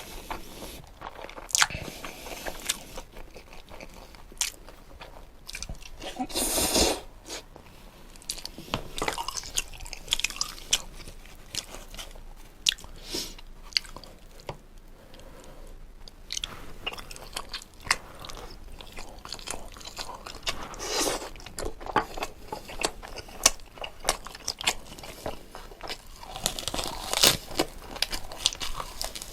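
Close-miked chewing and biting while eating jokbal (braised pig's trotter) with ssam wraps: irregular crunches and wet mouth clicks, with louder crunching bites about six seconds in and near the end.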